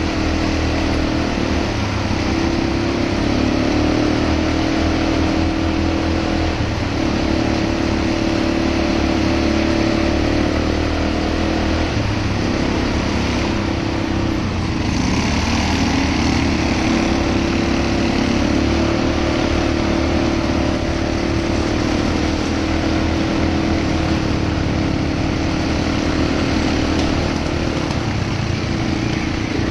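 ATV engine running under way, its pitch rising and falling a little with the throttle, with wind and road noise over it. About halfway through, the engine note dips briefly and the hiss grows louder.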